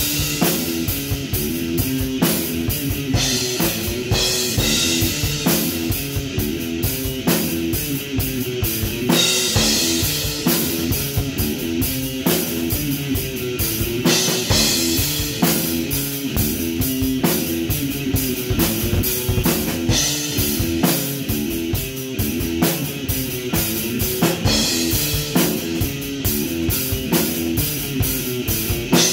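Electric guitar playing a repeating rock riff over a full drum kit. Cymbal crashes come every few seconds.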